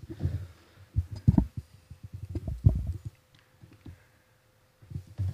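Irregular low thumps and knocks of handling noise on a table microphone, with a faint steady hum, going quiet for about a second near the end.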